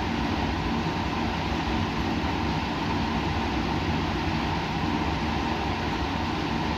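Steady laboratory machine noise: an even rush with a low hum and a faint steady tone above it, unchanging throughout.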